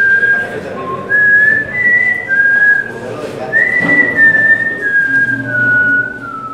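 A person whistling a slow tune in long held notes that step up and down, then fall step by step over the last couple of seconds.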